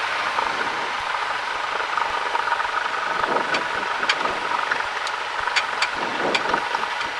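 Cessna 172's piston engine running steadily at low power, heard inside the cabin, with several sharp clicks in the second half.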